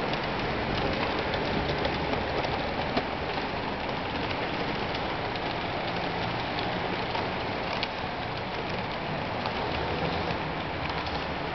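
Model train, an Electrotren Hellasprinter electric locomotive pulling container wagons, running at steady speed: a continuous rolling hiss with many small wheel clicks on the track.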